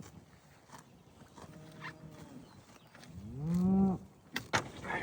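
A cow mooing: a faint low call about a second and a half in, then one loud moo rising in pitch about three seconds in. A few sharp knocks follow near the end.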